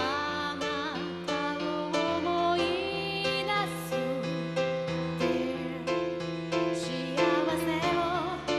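A woman singing while accompanying herself on a Roland XP-80 synthesizer keyboard set to a piano sound, playing a steady run of chords under a wavering, sliding vocal line.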